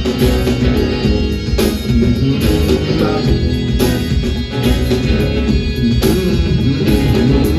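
Live band playing an instrumental stretch of a rock song: guitar over a heavy bass line and a steady drum beat, with no vocals.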